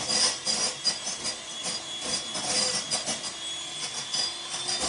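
Bosch electric hand mixer running at speed, its twin beaters whipping egg whites toward soft peaks in a glass bowl: a steady whir with irregular rattling from the beaters.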